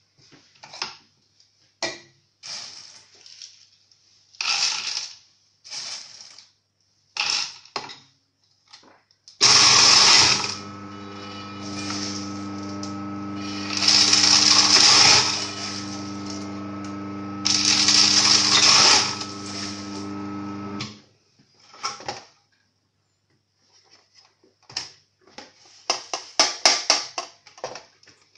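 A small electric grinder's motor runs for about eleven seconds, starting about nine seconds in, with a steady hum. Three times, loud crunching cuts through the hum as roasted cacao beans are fed in and cracked. Scattered knocks and rattles come before it, and a quick run of rattling clicks comes near the end.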